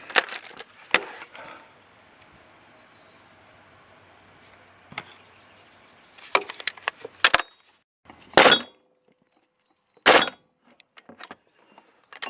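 Scattered clicks and clinks of tools and parts being handled, with two loud sharp knocks about eight and ten seconds in.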